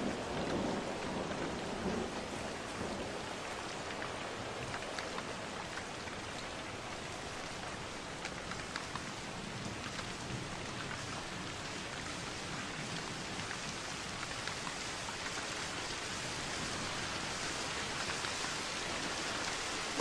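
Steady rain falling into standing water, a dense patter of drops on the puddle's surface. A faint low rumble of distant thunder sits under it in the first couple of seconds.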